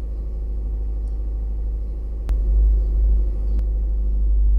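Toyota Vios engine idling fast after a cold start, its raised idle slowly coming down as the freshly reset ECU relearns the idle. A sharp click about two seconds in, after which the low rumble gets louder.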